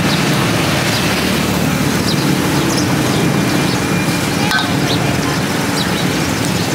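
Busy street ambience: a steady din of motor traffic and engines, with one brief clink about four and a half seconds in.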